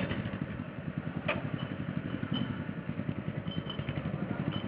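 A machine running with a rapid, even, low pulse of about nine beats a second, getting louder near the end, with a sharp click about a second in.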